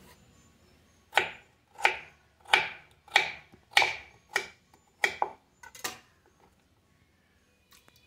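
Serrated kitchen knife dicing a raw potato on a wooden chopping board: about ten sharp chops, roughly two a second, that stop about three quarters of the way through.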